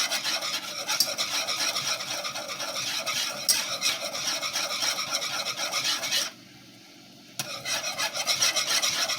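A utensil stirring grits in a pot of boiling water, with a steady rapid scraping against the pot, kept up so that the grits don't go lumpy. The stirring stops for about a second about six seconds in, then resumes.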